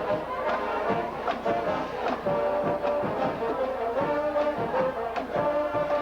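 Marching band playing, brass horns carrying the tune over a steady drum beat.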